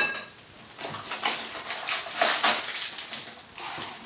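Small towel-bar hardware, the mounting brackets and plastic wall anchors, being handled and unpacked: a sharp clink with a short ring at the start, then irregular rustling and clattering.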